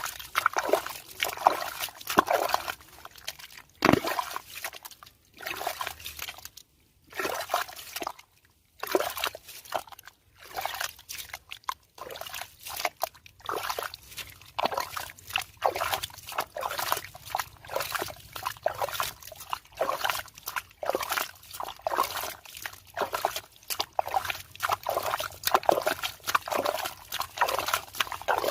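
Muddy water sloshing and splashing in quick, irregular bursts in a water-filled hole being worked by hand.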